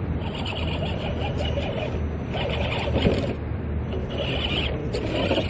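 RC rock crawler's electric motor and gears whining in short pulses as it climbs between two tree trunks, with a knock about three seconds in as the truck strikes the wood.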